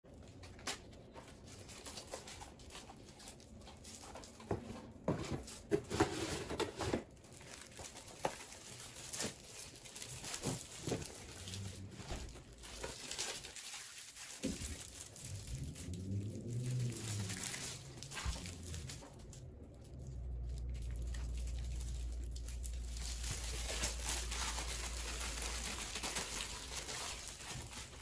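Plastic-wrapped sheet of wall decals crinkling and rustling with scattered crackles as it is handled, unrolled and rolled up by hand. A low steady hum comes in about two-thirds of the way through.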